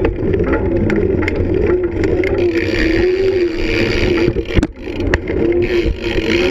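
Skateboard wheels rolling on smooth concrete: a steady rumble with a humming tone that wavers up and down with speed. A bit past four and a half seconds the rumble cuts out for about half a second between two sharp clacks.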